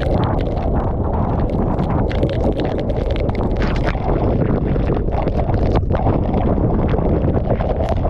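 Tornado winds buffeting the microphone: loud, steady wind noise with many short crackles scattered through it.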